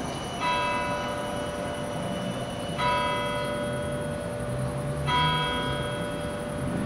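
A large bell striking slowly, three strokes a little over two seconds apart, each ringing on into the next, over a low background rumble.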